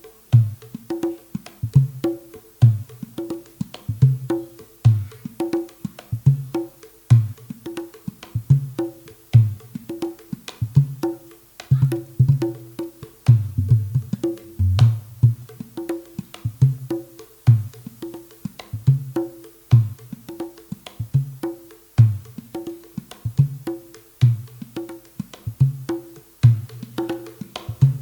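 Ketipung, a small Javanese hand drum with a jackfruit-wood shell, played by hand in a dangdut koplo rhythm. Deep low strokes alternate with higher, crisp slaps, and the pattern repeats about every two seconds.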